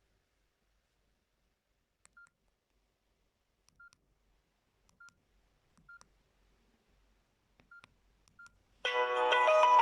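Samsung Metro 350 feature phone's keypad beeping faintly as keys are pressed: six short beeps on one pitch, each with a small click, about a second apart. Near the end a ringtone melody starts playing loudly from the phone's speaker.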